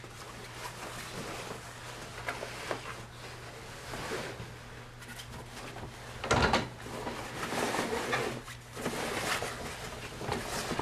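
Rustling and flapping of a large canvas umbrella canopy being handled and pulled over the umbrella's frame, with a louder thump about six seconds in.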